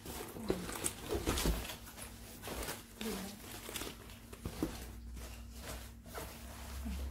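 Kipling nylon backpack being handled: fabric rustling, with zip sounds and scattered small clicks of its hardware and tags.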